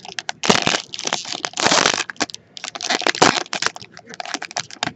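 Foil wrapper of a trading-card pack being torn open by hand and crinkled: dense crackling in several rushes, loudest in the first two seconds, then fainter scattered crinkles.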